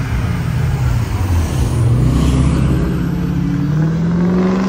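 Black BMW E46 3 Series sedan driving past and accelerating away, its engine and exhaust loud, with the note climbing steadily in pitch over the last couple of seconds.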